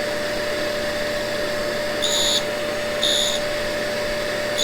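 Tool and cutter grinder and shop dust vacuum running steadily with a constant hum, and short high-pitched bursts as the carbide tool bit is touched against the grinding wheel, twice about two and three seconds in.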